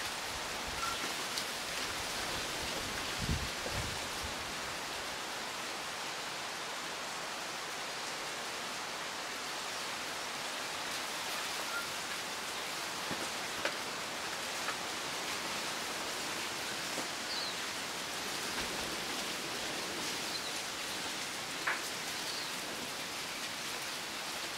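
Wind rustling through native bush, palm fronds, tree ferns and bamboo, making a steady, even hiss of leaves. A few faint, short bird chirps come through over it, and there is a brief low thump about three seconds in.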